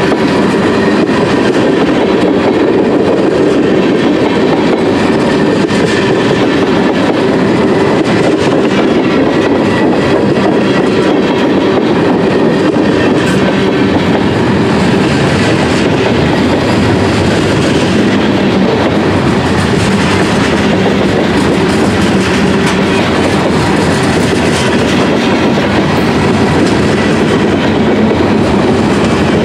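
Freight train of tank cars and covered hoppers rolling past close by: a loud, steady rumble and rattle of steel wheels on the rails.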